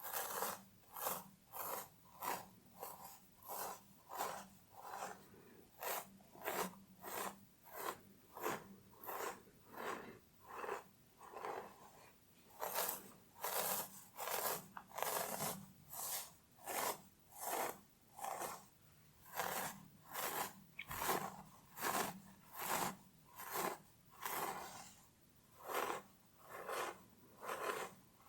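Fingernails scratching through hair on a scalp in steady, even strokes, about two a second.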